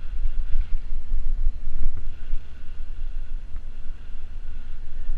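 Wind buffeting a GoPro action camera's microphone while riding a bicycle, a steady gusty low rumble.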